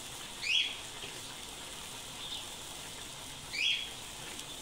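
Two short slurps of hot broth sipped from a ladle, about three seconds apart, over the faint steady sizzle of a paella pan simmering.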